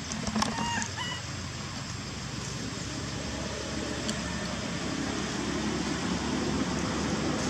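A few short, pitched animal calls about half a second in, over a low rumble of traffic that slowly grows louder towards the end.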